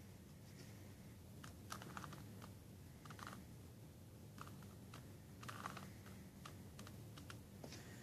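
Plastic Rubik's Cube layers being twisted by hand: faint, irregular clicks and clacks, some in quick clusters of two or three.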